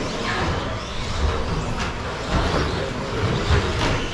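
Radio-controlled electric short course trucks racing on a carpet track: motors whining up and down as they accelerate and brake, over tyre noise, with a few dull knocks.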